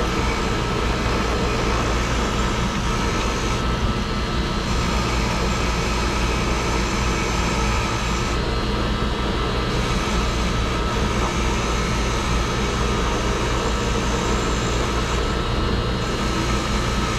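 Ryobi 6-inch bench grinder running steadily, a steady whine over a constant hum, while a corroded bolt's threads are held against the spinning wheel to clean them.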